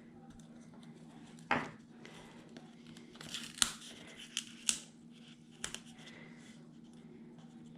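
Paper and sticker sheets being handled: a soft knock about a second and a half in, then a cluster of sharp crinkles and clicks from about three to five seconds in.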